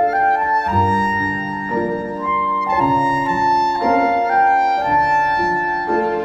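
Background music: a clarinet-like woodwind melody over piano chords, playing slow, sustained notes.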